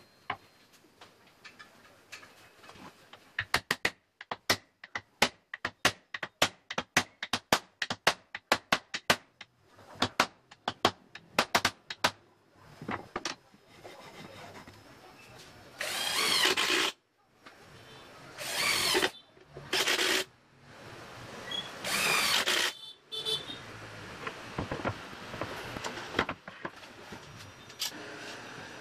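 A quick run of sharp knocks, about three a second, for several seconds, then an electric hand drill running in four short bursts of about a second each.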